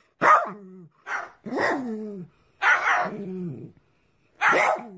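A dog barking in four short calls about a second apart, each sliding down in pitch.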